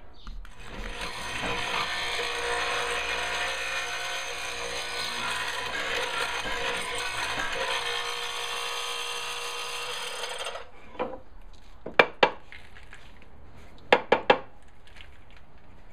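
A woodworking power tool running and cutting into wood for about ten seconds, then stopping abruptly. Several sharp wooden knocks follow near the end.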